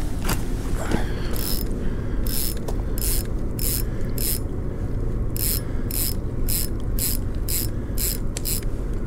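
Spinning reel's drag ratcheting in about fifteen short, separate bursts as line is pulled off the spool.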